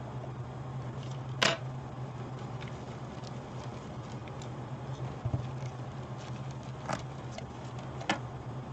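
A few sharp clicks and taps of metal tweezers and a soldering iron on the LED grow light's metal board while an LED is soldered in place, the loudest about a second and a half in and two more near the end, over a steady low hum.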